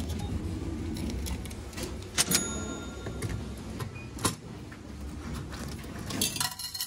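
Bath-ticket vending machine in use: a few sharp clicks and metallic clinks. One clink about two seconds in rings briefly, and a short burst of rustling handling noise comes near the end.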